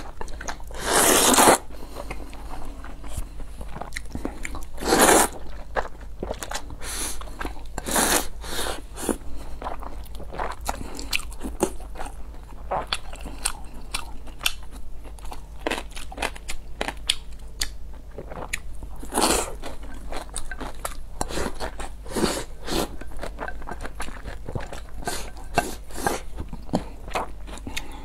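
Close-miked eating: a woman slurping thick potato noodles and chewing them with rice, a steady run of short, wet chewing and biting sounds. A few longer, louder slurps stand out, the loudest about a second in and another near five seconds.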